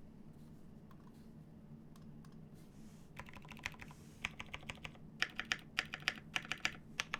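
Typing on a plateless JER1800 keyboard with lubed Pewter switches and G81-1800 keycaps. After about three seconds with only a stray faint click, it breaks into quick runs of rapid keystroke clacks, with a brief pause in the middle.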